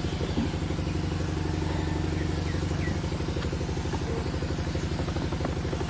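An engine idling steadily with an even, fast pulse.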